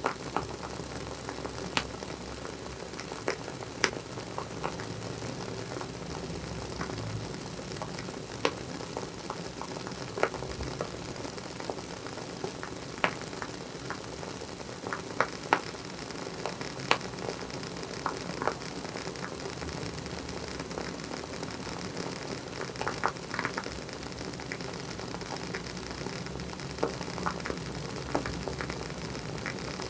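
Wooden wick of a WoodWick candle crackling as it burns: irregular sharp pops scattered over a steady hiss.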